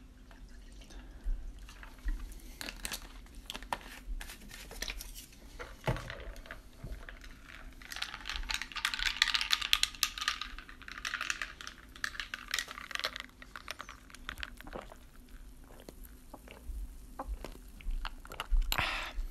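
Green tea poured into a glass of iced sparkling guava juice, then the drink stirred with a metal straw: ice clinking against the glass, with a fizzing hiss for several seconds around the middle.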